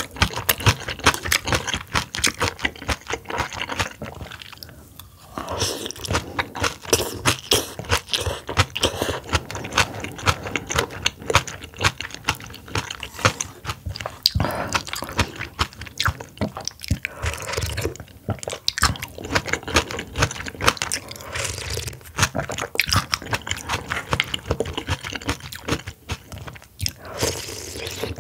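Close-miked eating sounds from a meal of oysters and oyster cold soup: chewing and crunching with many quick mouth clicks, easing briefly about four seconds in before picking up again.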